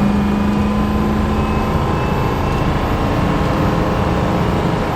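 Ford 6.0L Powerstroke V8 turbodiesel of an F-250 running steadily on the road with tyre and road noise, on a newly fitted turbocharger. A steady low hum fades about two seconds in.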